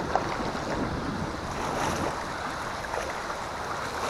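River water rushing around a kayak in a moving current: a steady wash of water with a few small splashes.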